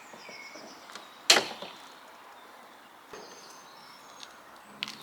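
A single sharp knock about a second in, with a lighter tick near the middle, over a faint background.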